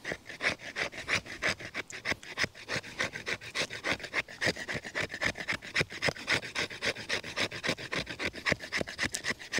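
The spine of a knife scraping down a wooden stick in quick repeated strokes, several a second, shaving off fine wood scrapings.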